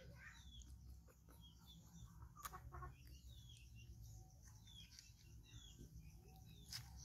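Faint bird calls: short falling chirps recurring every second or so over quiet background hum, with a couple of sharp clicks, one about two and a half seconds in and one near the end.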